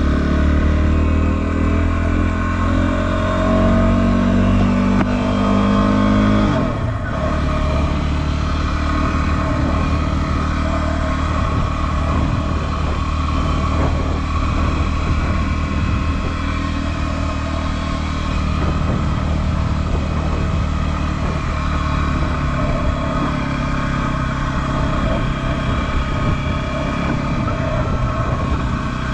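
2016 Yamaha WR250R's single-cylinder four-stroke engine riding along, its pitch climbing for the first six seconds. The pitch drops sharply about seven seconds in, then holds fairly steady.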